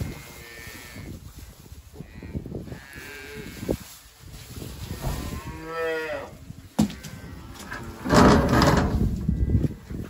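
Cattle in a barn mooing several times, the longest and loudest call about five to six seconds in. A sharp knock follows shortly after, then a loud burst of noise for about a second near the end.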